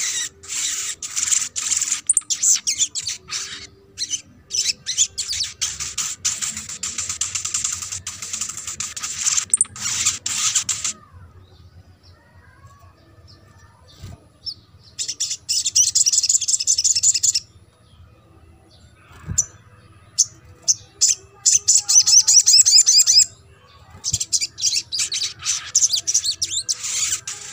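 Sunbird song: fast, very high chirping trills in several long bursts, with short pauses between them, the longest near the start.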